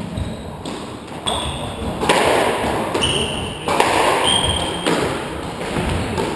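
Squash rally: several sharp hits of the ball off racket and walls, with short high squeaks of shoes on the wooden court floor.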